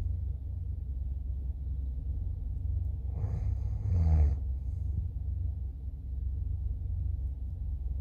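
A person snoring once, a drawn-out breath about three seconds in, over a steady low rumble.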